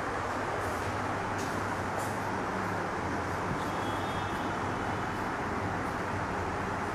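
Steady background noise, an even hiss and rumble with a low hum underneath.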